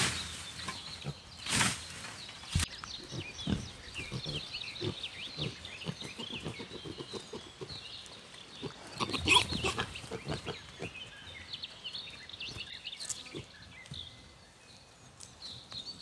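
Domestic pigs grunting as they root about, with two louder bursts of noise about a second and a half and nine seconds in. Small birds chirp in the background.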